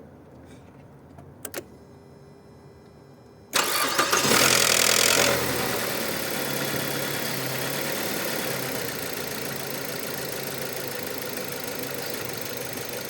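Mazda 6 2.0 inline-four engine starting about three and a half seconds in, after two short clicks: loud for the first couple of seconds, then settling to a steady idle. The start carries the diesel-like clatter of a faulty variable valve timing (cam) phaser, whose broken valve lets the oil drain out while the engine is off, so the phaser rattles until it refills with oil.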